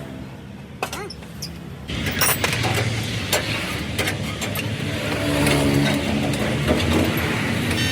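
A motor vehicle engine running steadily, coming in suddenly about two seconds in and growing a little louder later. Before that there are a few sharp clicks and a knock.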